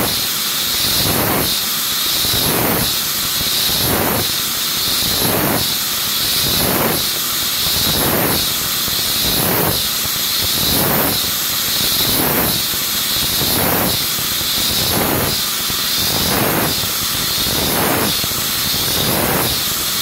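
CNC milling machine slotting an aluminium part with its spindle locked: the axis drive strokes the cutter in and out about once every 1.4 seconds, each stroke heard as a rising-then-falling whine, over a steady hiss of coolant spray.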